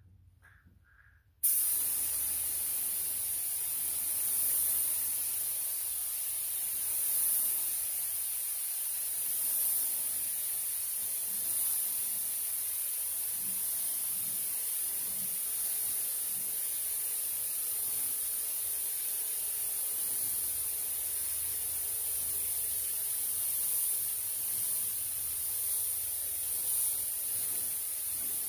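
Compressed-air paint spray gun hissing steadily as it sprays orange ceramic engine paint, starting abruptly about a second and a half in.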